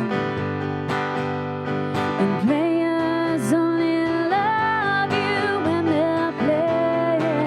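Female singing accompanied by a strummed acoustic guitar: a slow melody of long held notes with vibrato and slides between pitches.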